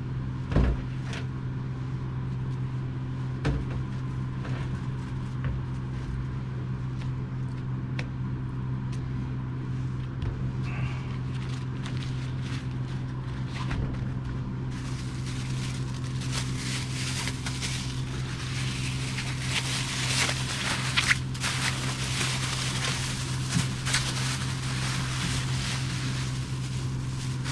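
Paper towel and plastic crinkling and rustling as fish fillets are wrapped on a cutting board, thickest from about halfway on, with a few sharp knocks. A steady low mechanical hum runs underneath.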